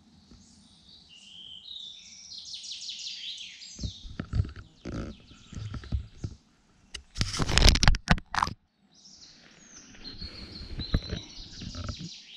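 Woodland birds singing, with chirps and trills. In the middle comes a few seconds of loud rustling and thumping close to the microphone as the camera is handled; the loudest burst is about two-thirds of the way through.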